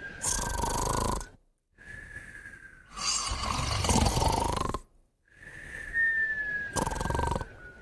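Sleeping pets snoring in a repeating cycle. Each breath is a thin whistle that falls slightly in pitch, followed by a rough snore. Three snores come about every three and a half seconds, with a brief silence between breaths.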